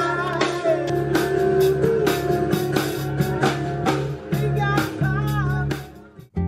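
A song with singing, guitar and drum kit, fading away about six seconds in.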